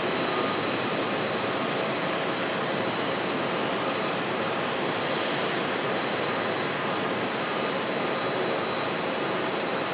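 A Boeing 787-8 Dreamliner's GEnx-1B turbofan engines at takeoff thrust as the jet climbs away, a steady rushing jet noise with a faint high whine, easing off slightly as it recedes.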